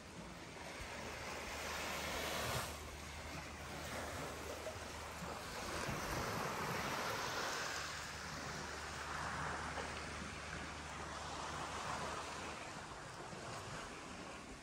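Sea waves washing in, swelling and falling away every few seconds. A faint low hum lies under them for the first five seconds or so.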